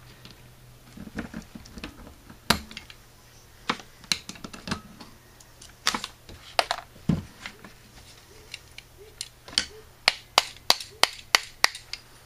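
Scattered clicks and light metallic taps of hand tools and a Carter RBS carburetor's cast-metal body being handled during disassembly, with a duller knock about seven seconds in and a quick run of sharp clicks near the end.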